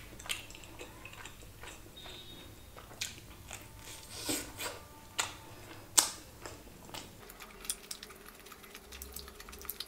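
Biting into and chewing a crispy chicken wrap: scattered soft crunches and small clicks.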